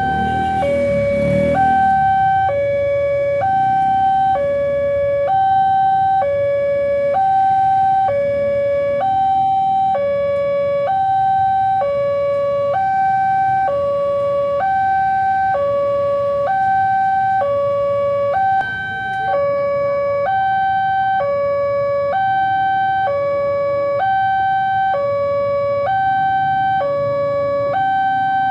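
Railway level-crossing warning alarm sounding a steady electronic two-tone signal, a higher and a lower note alternating evenly over and over: the crossing is closed for an approaching train.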